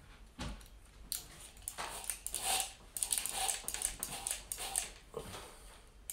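Handling noise from a hand-held power drill being positioned against a wooden frame: scattered light clicks and rustles, with no drilling yet.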